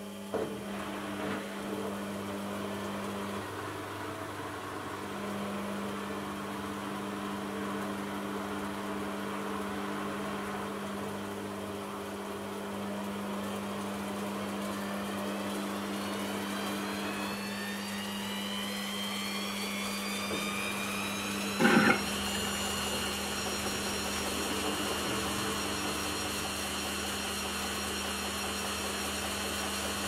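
Aldi front-loading washing machine going into a spin: a steady motor hum, then a whine that rises in pitch as the drum speeds up and holds high and steady once it reaches speed. There is a brief loud knock just before it levels off.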